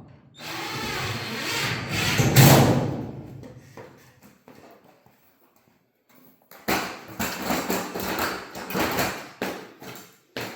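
Sheet-metal ductwork being handled: a long scraping, rattling slide that peaks about two and a half seconds in, then a quiet pause, then a run of shorter metal scrapes and knocks.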